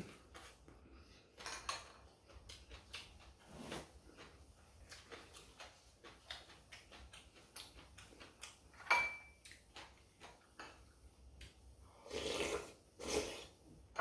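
Eating at a table: chewing, with small clicks of chopsticks against ceramic bowls and dishes. One sharper clink about nine seconds in rings briefly, and louder chewing or smacking comes near the end.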